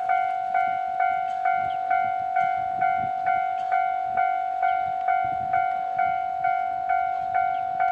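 Japanese level-crossing warning bell ringing, a single clanging note struck steadily about twice a second, each strike fading before the next, signalling that a train is approaching the crossing.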